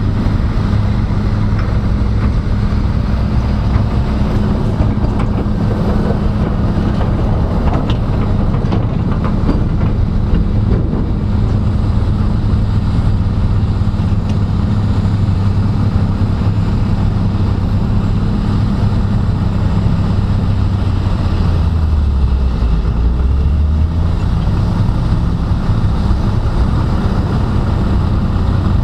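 Heavy earthmoving plant's diesel engine running with a steady low rumble. The engine note dips briefly about 22 seconds in, then returns.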